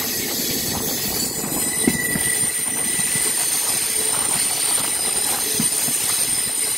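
Malgudi Express passenger train running along the track, heard from an open coach door: a steady rumble of wheels on rail. A thin, high wheel squeal sets in about a second in and holds.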